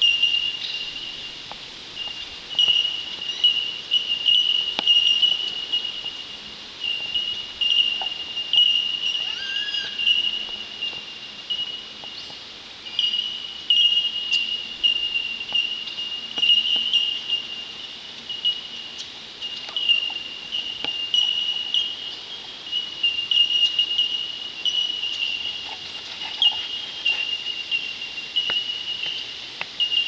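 Chorus of bell miners (Australian bellbirds): many overlapping high, bell-like 'tink' notes on nearly one pitch, repeated without pause.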